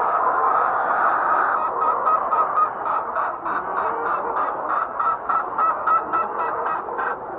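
A flock of hens clamouring. From about two seconds in until near the end, one bird gives a fast run of short, repeated calls, about four a second.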